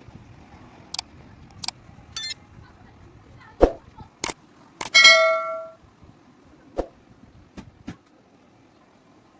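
Metal striking metal: a series of separate clanks and knocks, with a quick rattle about two seconds in and one loud clang about five seconds in that rings on for most of a second.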